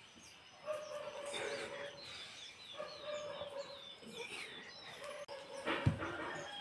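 Birds chirping, with many short high calls, and drawn-out lower calls from fowl. A single low thump comes near the end.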